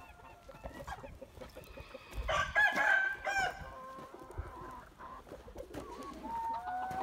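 A rooster crows once, loudly, a little over two seconds in, amid the clucking of hens.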